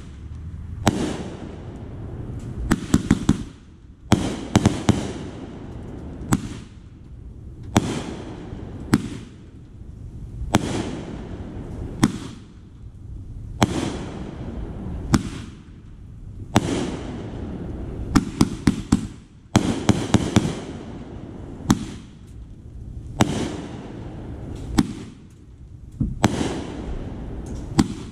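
Consumer aerial firework cake firing shot after shot, about one bang every second and a half, each shell launching and bursting. Some bursts break into quick clusters of crackling pops.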